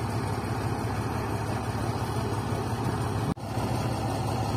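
Diesel engine of a tandem-axle dump truck idling steadily, a low, even hum. The sound cuts out for an instant a little past three seconds in.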